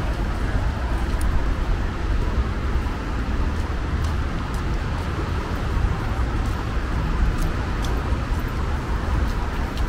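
Steady road traffic: a continuous low rumble of passing vehicles, with a few faint scattered ticks.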